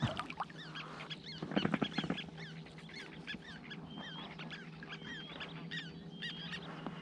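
Birds calling in many short, repeated chirping notes, with a brief cluster of knocks about one and a half seconds in and a faint steady hum underneath.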